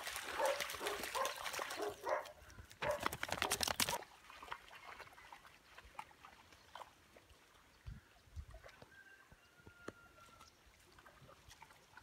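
A dog barking and yelping in short calls over the first two seconds, then a brief burst of splashing through shallow flood water about three seconds in; after that only faint scattered trickles and ticks.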